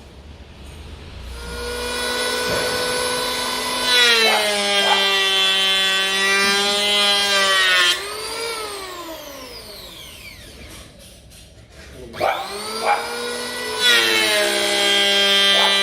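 Electric hand planer shaving a camphor wood board. The motor whines up to speed, then drops in pitch and gets louder as the blades bite the wood. Near the middle it is switched off and spins down with a falling whine, then it starts again and cuts a second pass near the end.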